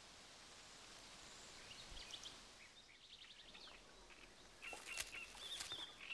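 Faint bird chirps over a quiet outdoor background, with a quick rattling series of notes about three seconds in. The calls grow louder and more frequent near the end.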